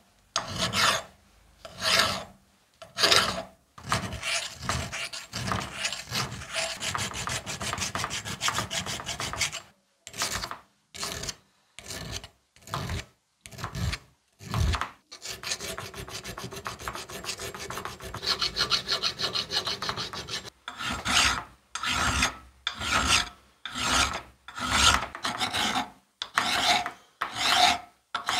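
Hand files rasping over the metal body of a DOKU AA-1.3B air hammer clamped in a vise. The strokes come about a second apart at first, quicken into a run of short rapid strokes, and then slow back to separate strokes near the end.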